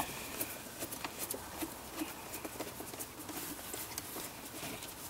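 Screwdriver turning a long screw out of a plastic air filter housing cover: faint, irregular small clicks and scrapes, with a slightly sharper click at the very start.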